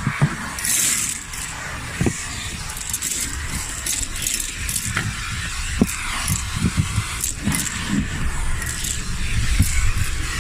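Vacuum cleaner running over car carpet, with grit and small stones clicking and rattling as they are sucked up the nozzle.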